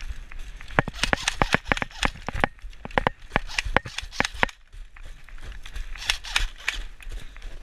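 Quick, irregular crunching footsteps of someone running over dry ground, with rustling. They stop briefly about four and a half seconds in, then start again.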